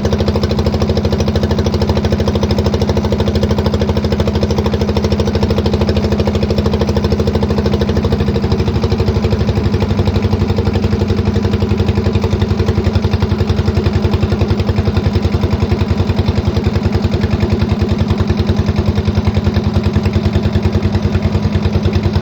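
Boat engine running steadily with a fast, even chugging pulse. Its pitch shifts slightly about halfway through.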